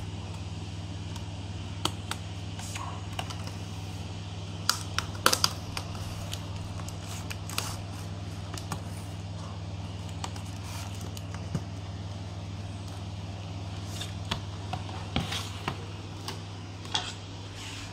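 Scattered light plastic clicks and taps as a replacement keyboard is handled and pressed into place in an HP ProBook 440 G5 laptop, over a steady low hum.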